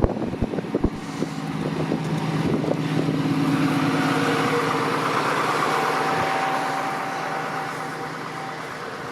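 Motor vehicle engine hum that grows louder over a couple of seconds and then fades, with a thin steady whine over it in the middle, as a vehicle passes or is passed. A few sharp knocks in the first second.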